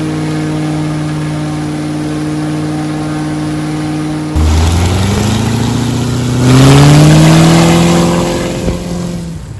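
Bush plane's 13-litre, 780-cubic-inch high-compression piston engine and propeller running at a steady warmed-up idle, then, after a cut about four seconds in, opened up with the note rising in pitch. It is loudest around seven seconds in and fades near the end.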